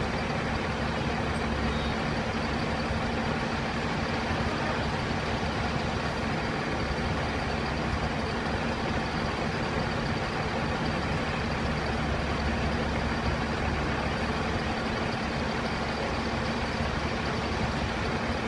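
Fire engine's diesel engine idling steadily close by, a constant low hum with no changes.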